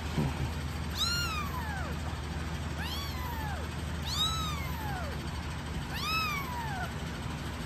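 A four-week-old kitten mewing: four high calls one to two seconds apart, each rising then falling in pitch, while it is being stimulated with a tissue to pee.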